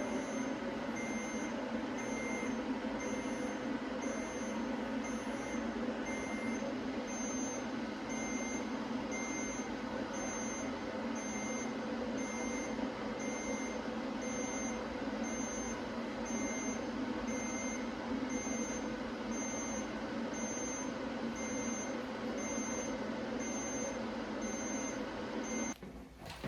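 Cold laser therapy device beeping at a steady, even rate during treatment, short high beeps over a steady background noise. The beeps stop shortly before the end.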